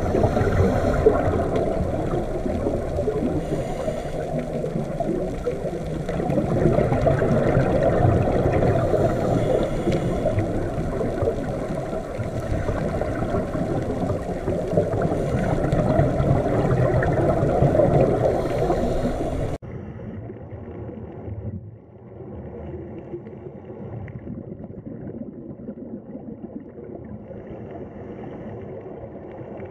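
Underwater ambient noise picked up through a camera's housing: a dense, muffled rumble and wash of water. About 20 s in it cuts off abruptly and gives way to a quieter, duller underwater recording.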